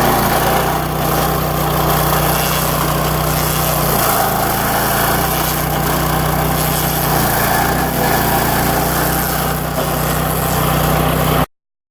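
Power King PK0803 stump grinder running steadily at working speed, its gasoline engine's hum mixed with dense mechanical noise, with a slight dip in level about a second in and again near the end.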